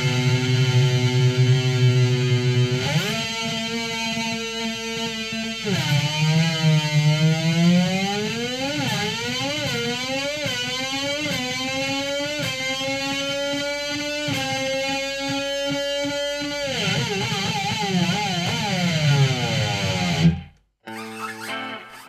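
Electric guitar played to imitate a V8 Formula 1 engine, retuned so its notes match the engine at up to 18,000 rpm. It holds a low idle note and steps up once, then plays a run of rising pitch sweeps, each dropping back like an upshift through the gears. Near the end the pitch wavers and falls, and the sound cuts off suddenly.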